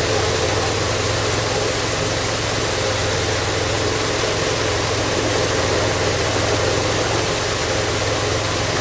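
Motorized rice threshing machine running steadily while threshing glutinous rice: an even mechanical noise over a constant low hum.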